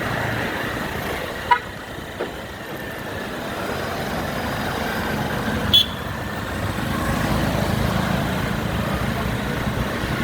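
Road traffic running, with two brief horn toots, one about a second and a half in and one about six seconds in; a vehicle grows louder in the second half.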